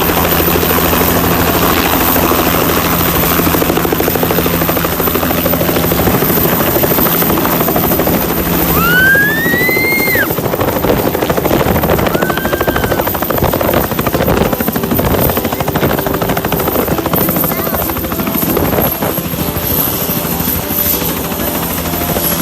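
Helicopter running close by: a steady loud rotor and engine noise with a very high turbine whine. The whine sinks in pitch over the last few seconds as the engine begins to wind down. A brief high squeal rises and falls about nine seconds in, with a fainter one soon after.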